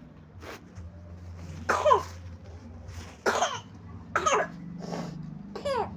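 Young child coughing repeatedly, about five short coughs with a voiced, falling tail, the loudest about two seconds in. The coughing is from a sick toddler's illness. A steady low hum runs underneath.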